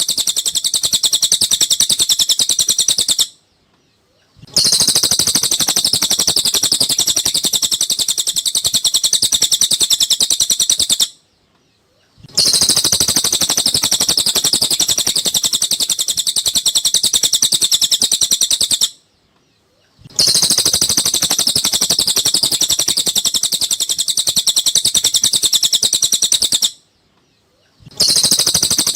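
Cililin bird song: a fast, unbroken stream of high chirps and trills in runs of about seven seconds, each cut off by about a second of silence, as a recording played in a loop for training captive songbirds (masteran).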